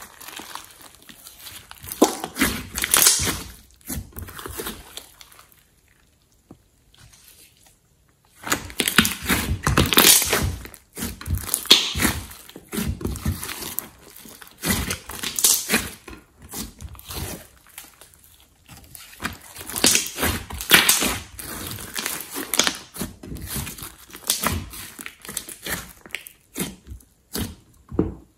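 A large mixed slime being squeezed and kneaded by hand: wet squishing with crackling and popping of trapped air, in irregular bursts, with a pause of a few seconds about six seconds in.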